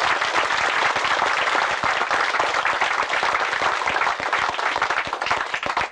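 Audience applauding: many people clapping together in a dense, steady stream of claps.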